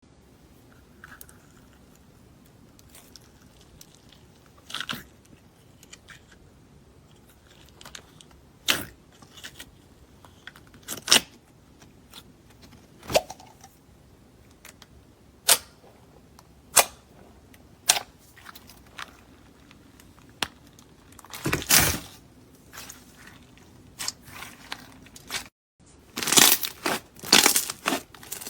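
Slime being handled, giving separate sharp crisp pops every second or two, a quick run of crackling pops about 22 seconds in, and dense crackling near the end.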